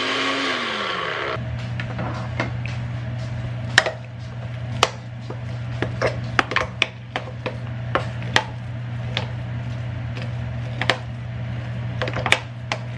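A countertop blender runs briefly and winds down, stopping about a second in. Then a spoon scrapes and knocks against the plastic blender jar while thick hummus is stirred down, a long string of sharp taps.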